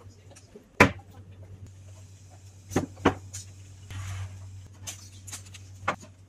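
Several sharp knocks and clinks of cooking items being handled and set down on a desk, the loudest about a second in, two more close together near three seconds and another near the end, over a low steady hum.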